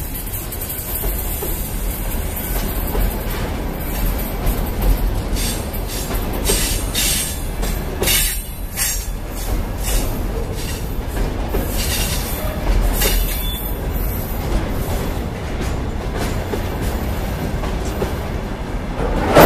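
A freight train of two-tier car-carrier wagons rolling past close by: steady wheel-and-rail rumble with clacks as wheels cross rail joints, and a louder clack near the end.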